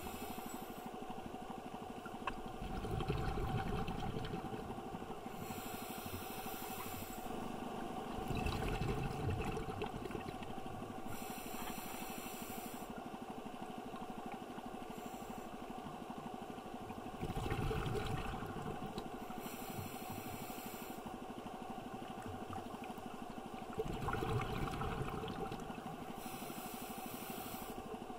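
A scuba diver's breathing heard underwater: a hiss through the regulator on each inhale alternating with a louder low rumble of exhaled bubbles, a full breath about every six seconds, over a steady faint hum.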